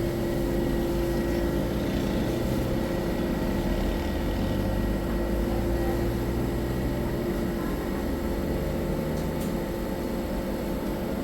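A steady low mechanical hum with a constant tone through it, unchanging in level.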